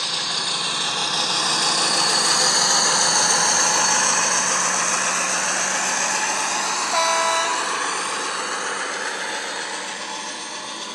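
Model Class 56 diesel train passing: the ESU sound decoder's diesel engine sound through the locomotive's speaker, mixed with the wagons' wheels running on the track, swelling and then fading. About seven seconds in, a short horn note sounds.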